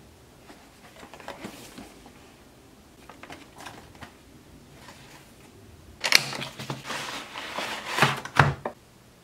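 Packaging being handled: soft rustling and taps of cardboard boxes among crumpled kraft packing paper, then, about six seconds in, a louder run of crinkling and scraping with sharp clicks as a clear plastic clamshell case is slid out of its cardboard sleeve, stopping abruptly just before the end.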